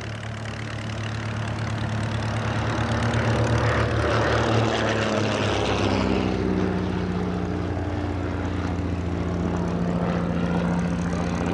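Percival Gull Six's 200 hp de Havilland Gipsy Six engine and propeller in a low flypast. The drone grows louder over the first few seconds, then drops in pitch about six seconds in as the aircraft passes.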